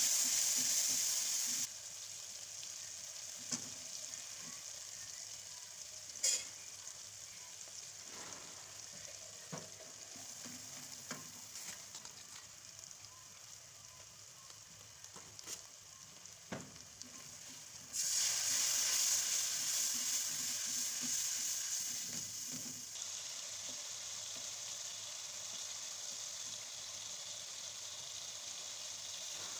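Sliced onions frying and sizzling in oil in a pan, stirred with a wooden spatula that knocks and scrapes against the pan a few times. The sizzle is loudest at the very start and again for several seconds about two-thirds of the way through.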